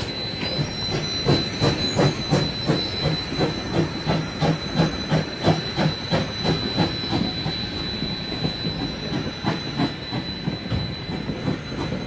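Rio Grande Southern #20, a narrow-gauge 4-6-0 steam locomotive, chuffing past in an even beat of about three exhaust beats a second. A steady high whine runs under the beat, and wheels squeal faintly now and then.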